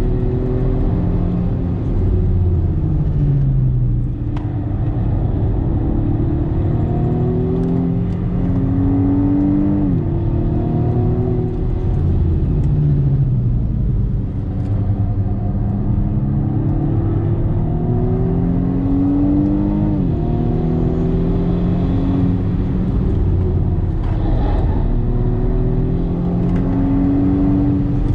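BMW M135i F40's turbocharged four-cylinder engine, heard from inside the cabin, pulling hard with its pitch climbing steadily. It drops sharply at upshifts about ten and twenty seconds in and eases briefly around four and fourteen seconds in.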